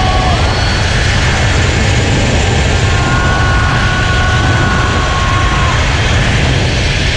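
Heavy wind rushing over an action camera's microphone during a fast zipline ride, a steady deep roar. A thin steady whine sits above it from about three seconds in for nearly three seconds.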